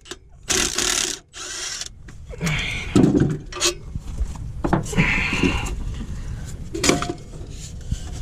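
Irregular clattering, scraping and knocking of hand tools and metal parts as a truck clutch assembly is worked loose and handled by hand.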